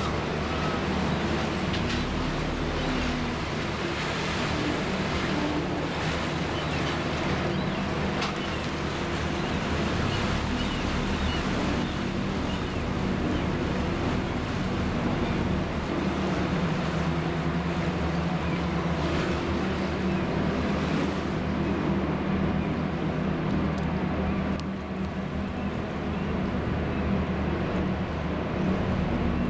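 Passenger ferry underway: its engines drone steadily under the rush of wind and water along the hull. The hissing wind noise thins out in the last few seconds.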